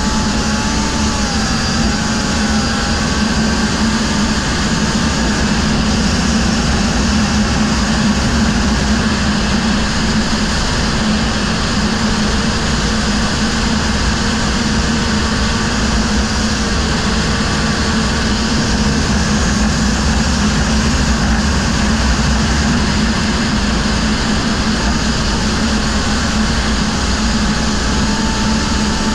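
Racing quad's engine running steadily at speed, heard from a camera on the machine, under a constant loud rush of noise with faint wavering whines above it.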